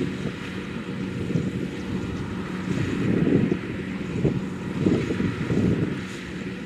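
Kubota DC-70 Plus rice combine harvester's diesel engine running steadily, with wind gusting on the microphone.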